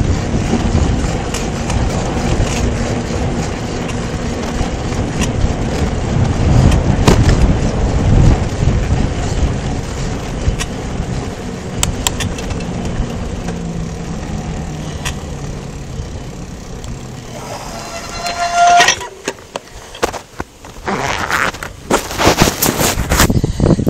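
Wind buffeting the microphone of a camera riding on a bicycle, with the rumble of tyres on asphalt and the rattle of the bike and mount. About 18 seconds in, a brief high squeal, then loud knocks and rustling as the camera is handled.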